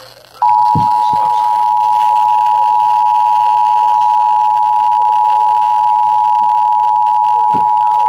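Emergency Alert System two-tone attention signal: two steady tones sounded together as one chord through a radio's speaker. It starts about half a second in and holds without change. It announces that an emergency alert, a tornado warning, is about to be read.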